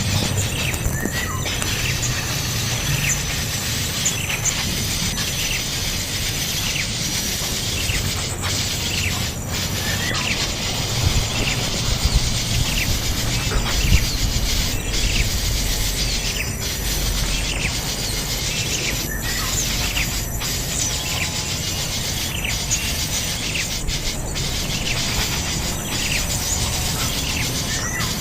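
Birds chirping: short, high chirps repeated irregularly over a steady outdoor background of hiss and low rumble.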